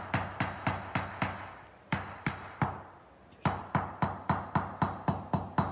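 Rubber mallet knocking on a steel rod of a modular tube-and-connector shelf frame, seating it in its joint: quick, even blows about four a second, thinning to a few spaced knocks in the middle before speeding up again near the end.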